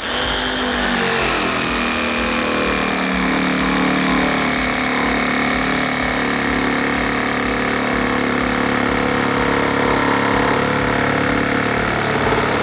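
Ryobi ONE+ R18JS 18V cordless jigsaw running through a cut, its motor pitch sinking in the first second or two as the blade takes the load, then holding a steady whine.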